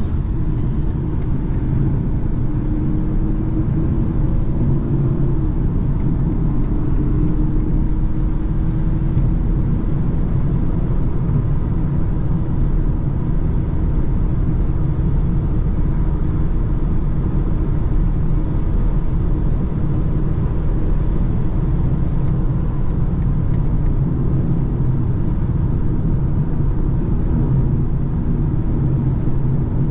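Inside a BMW cruising at motorway speed: a steady low rumble of engine and tyres on the road surface, with a faint engine hum that shifts slightly in pitch now and then.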